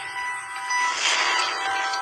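Logo intro sound effect: a noisy whoosh swelling about a second in, over several held ringing tones.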